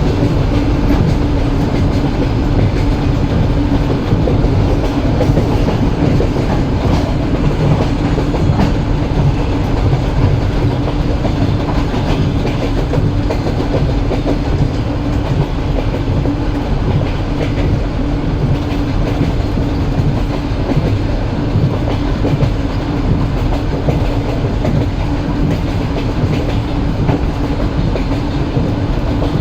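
Moving train: a steady rumble of a railway carriage with the clickety-clack of wheels over the rail joints and a low steady hum.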